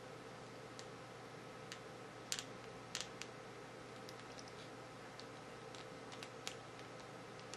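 Scattered light clicks and taps of small plastic figure parts being handled and pressed together, over a steady faint hum. The sharpest clicks come about two and three seconds in, with more near the end.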